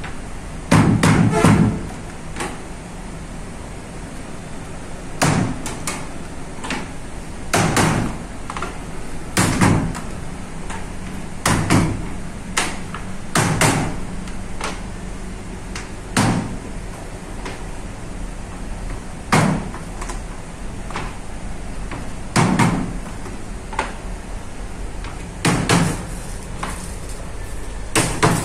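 Loud, irregular knocks and clatters of metal parts, as fabric is laid out and clamped on the metal frame of a multi-head embroidery machine, over a steady low machinery hum.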